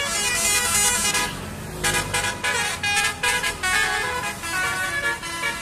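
Bus basuri telolet horn, a multi-tone musical air horn, playing a tune: held notes at first, a short break about a second and a half in, then a run of quick stabbed notes before it settles into longer notes again.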